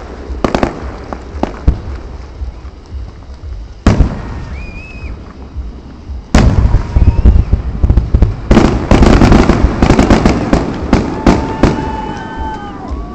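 Aerial fireworks shells bursting: separate sharp bangs, the loudest about four seconds in and just after six seconds, then a dense run of rapid crackling reports for about three seconds.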